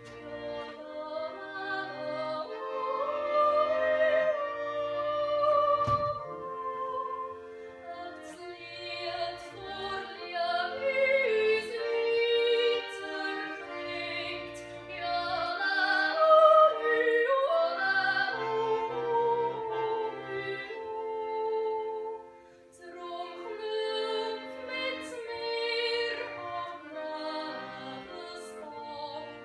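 Operatic, classical-style singing with vibrato in a high voice, over an instrumental accompaniment with low bass notes.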